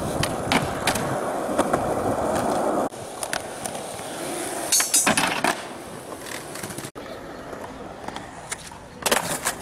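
Skateboard wheels rolling on concrete, with sharp clacks of the board striking the ground, loudest in a cluster about halfway and again near the end.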